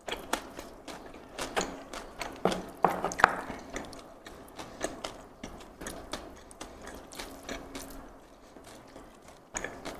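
Close-miked crackling and clicking of crispy fried anchovy sambal and rice as bare fingers mix and pick through it. The crackles come irregularly, densest and loudest about two and a half to three seconds in, then sparser.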